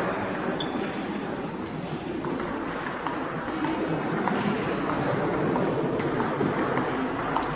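Table tennis rally: the celluloid ball clicks lightly off the rubber paddles and the table in a run of quick hits from about two seconds in, over the steady hubbub of a sports hall.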